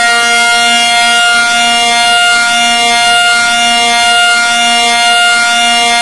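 Emergency warning siren holding one steady, loud pitch with several overtones. A fainter lower note pulses on and off beneath it.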